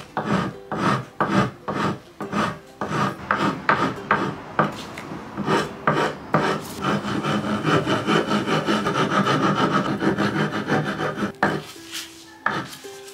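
Coarse hand file rasping across the sawn end of a round wooden chair leg in quick back-and-forth strokes, about two or three a second. The strokes run together into continuous rasping past the middle and stop briefly near the end.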